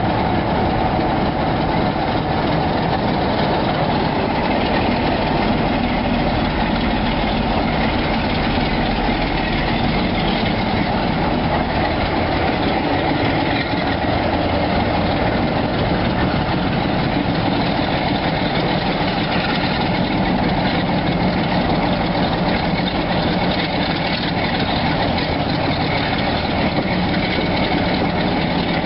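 Class 47 diesel-electric locomotive's Sulzer twin-bank 12-cylinder engine working steadily under load as it hauls its train up a gradient, heard close behind the locomotive from an open carriage window, with the running of the train beneath.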